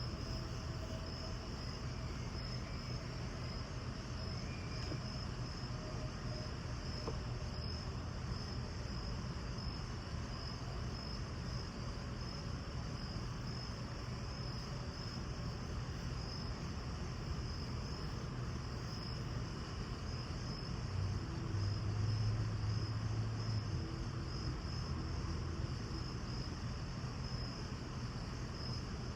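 Insects chirping in a steady run of short repeated pulses over a background hiss and a low hum; the hum grows louder for a few seconds about three quarters of the way in.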